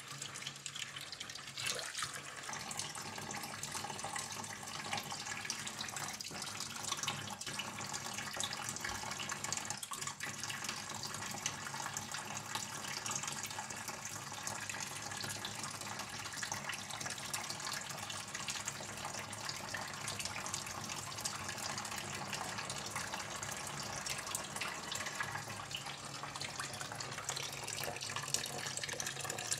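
Thin stream of water running steadily from a kitchen tap and splashing into a stainless-steel sink, with a couple of faint knocks.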